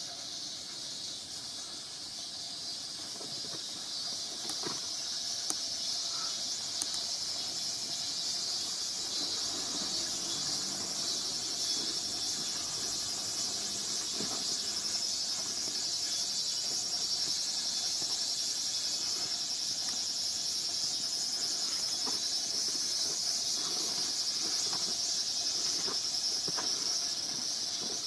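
Steady, high-pitched shrilling of summer insects, growing a little louder after the first few seconds, with a few faint taps.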